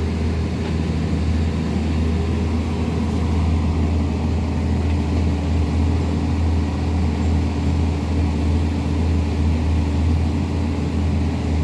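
Excavator diesel engine running steadily, a low, even hum that does not rise or fall.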